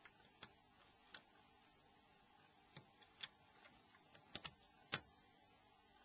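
Small, sharp clicks and taps of plastic phone parts and tools being handled, scattered irregularly, with a close pair about four and a half seconds in and the loudest just after, over a faint steady hum.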